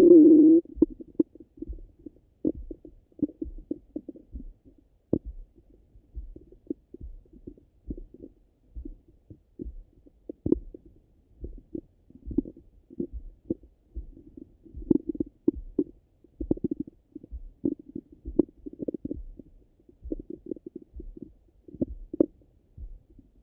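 Stomach and bowel sounds heard through a stethoscope pressed on the belly: irregular soft gurgles and rumbles of digestion after a meal, with a louder gurgle fading in the first half-second. Under them a low, soft pulse repeats about once a second.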